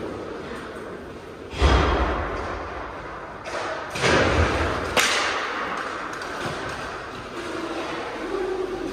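Inline hockey play: the puck and sticks strike and thud against the rink boards. There is a loud thud about one and a half seconds in, a second burst of knocks near four seconds and a sharp crack at five seconds, each echoing in the hall.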